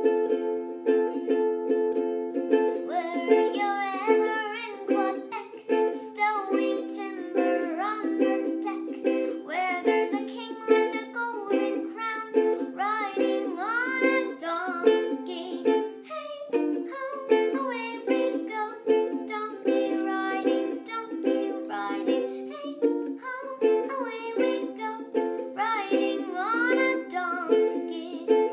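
A ukulele strummed in a steady chord rhythm, with a girl's voice singing along from about three seconds in.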